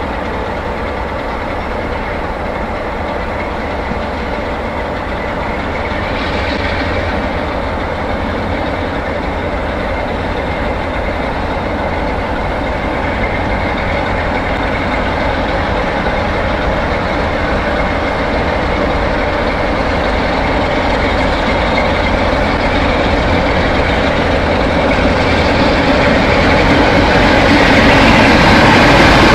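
Class 47 diesel locomotive engine running under power as a loco-hauled train pulls away, the engine and rail noise growing steadily louder as it comes closer.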